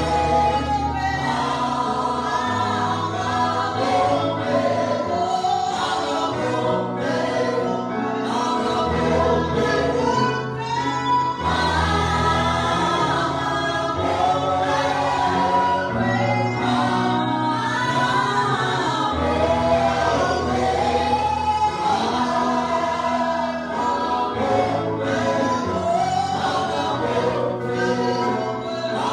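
Gospel choir singing with instrumental backing, sustained bass notes under the voices.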